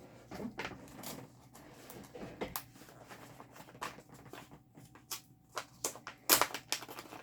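Packaging and small items being handled: irregular rustling and light clicks and taps, with a cluster of sharper clicks near the end.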